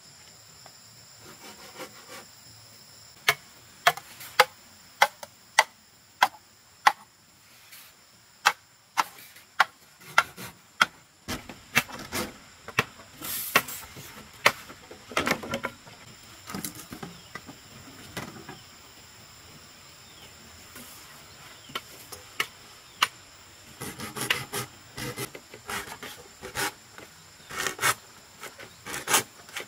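Machete chopping and trimming green bamboo poles: seven sharp strokes a little over half a second apart about three seconds in, then irregular knocks and scraping, and a denser run of strokes near the end. Insects trill steadily in the background.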